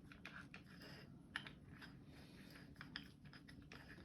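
Faint, irregular small clicks and taps from a grinding disc being fitted onto an angle grinder's spindle.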